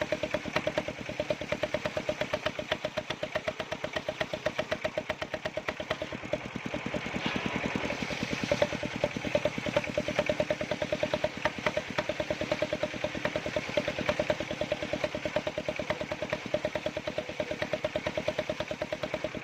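Engine of a wood-cutting machine running steadily with a rapid, even chugging; it grows a little louder and harsher about seven to nine seconds in.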